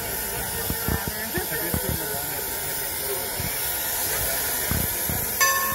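Standing steam locomotive hissing steadily, Strasburg Rail Road No. 475, a 4-8-0, with scattered crowd voices and a few low thumps. A steady tone sets in near the end.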